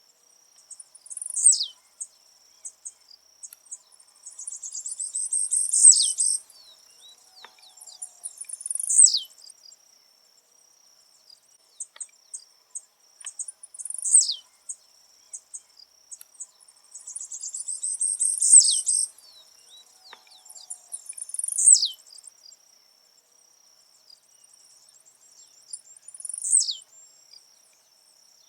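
Blue-black grassquit (tiziu) singing: short, high, buzzy notes that sweep steeply downward, repeated every few seconds, with two longer sputtering runs of notes.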